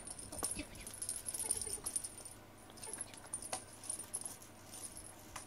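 Beaded cat wand toy being swished and dragged over a foam floor mat: light clicks and high jingling rattles in uneven bursts, with a short lull about halfway.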